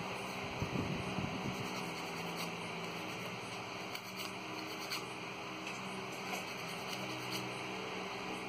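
A steady buzzing hum with a few faint clicks now and then.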